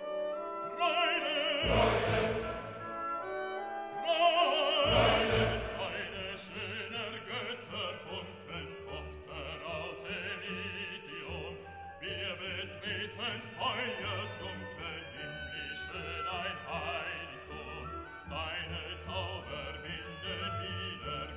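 Operatic singing with orchestral accompaniment: a voice with strong vibrato over sustained strings, with deep low notes coming in about two and five seconds in.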